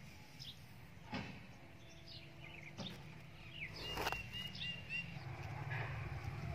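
Faint bird chirps, short and scattered, over a low steady outdoor background, with a short sharp click about four seconds in.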